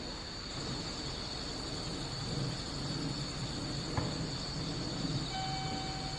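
Crickets trilling steadily at night over a low background rumble. There is a short click about four seconds in, and a brief tone begins near the end.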